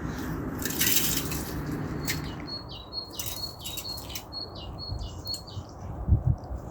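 Melting, draining sheet ice clicking and clattering, with a sharp burst of clatter about a second in and a low thump near the end. Through the middle comes a quick run of short, high chirps.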